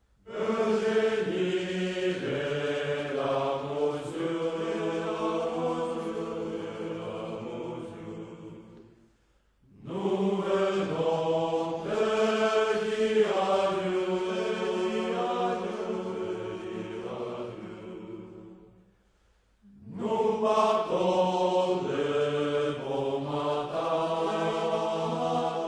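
A choir singing slow, held phrases, three of them, with short breaks about nine and nineteen seconds in.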